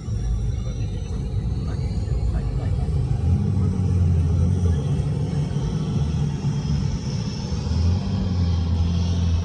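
Low, wavering rumble of a car driving fast, with the high whine of a MiG-21 fighter's jet engine shifting in pitch above it and growing louder near the end.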